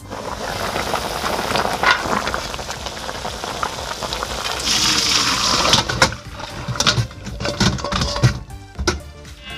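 Pot of boiled pork backbones and broth: a steady bubbling hiss once the glass lid comes off, then liquid splashing as bones and broth are poured into a stainless steel colander. From about six seconds in, bones clatter and knock against the metal.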